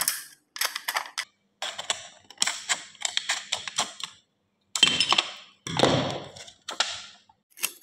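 Scissors snipping through the thin aluminium wall of a soda can: a series of crisp clicking cuts, roughly one a second with short gaps between. About six seconds in, the freed sheet of can metal crinkles as it is handled.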